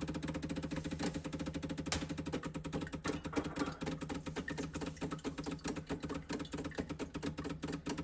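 Decent espresso machine running at the start of a shot, warming up before flow begins: its pump gives a rapid, even ticking over a steady hum.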